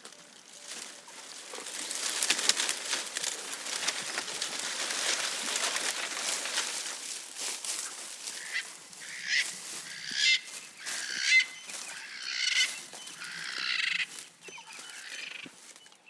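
Leaves and twigs rustling and crackling as a giraffe browses, swelling over the first couple of seconds. Then a run of about six short, harsh bird calls from roughly halfway through.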